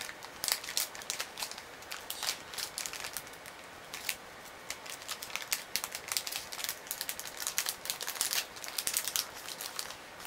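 Small clear plastic bag crinkling in a child's hands, as a run of irregular, quick crackles.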